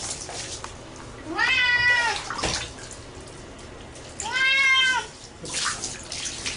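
Wet tabby cat meowing twice during a bath, each a long drawn-out call that rises and falls in pitch. Between the calls, water poured over it from a jug splashes.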